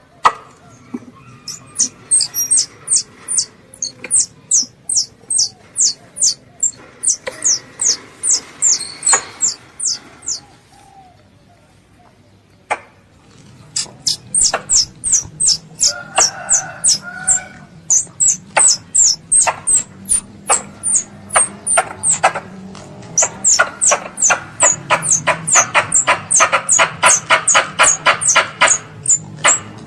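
A young squirrel calling its mother: a rapid series of sharp, high chips, about three a second. After a pause of a few seconds near the middle, the chips resume and come faster toward the end.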